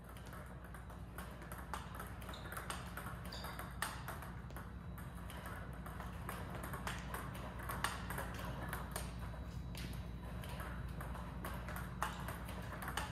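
Table tennis balls fed by a Power Pong robot, struck with a paddle and bouncing on the table: sharp clicks in quick, uneven succession over a steady low hum.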